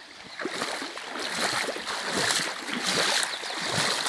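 A person wading through floodwater, the water sloshing and splashing with each stride, starting about half a second in.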